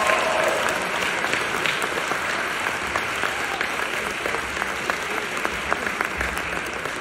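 Audience applauding, a dense steady clapping that eases slightly in level toward the end.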